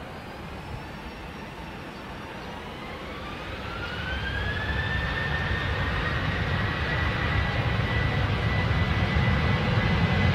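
Boeing 737-800's CFM56-7B jet engines spooling up to takeoff thrust. A whine rises in pitch about three to five seconds in and then holds steady and high, while a low rumble grows steadily louder as the jet starts its takeoff roll.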